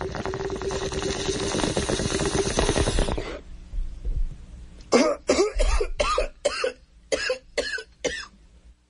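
Bong hit sound effect: water bubbling in a bong as smoke is drawn through it for about three seconds, then a run of about eight coughs.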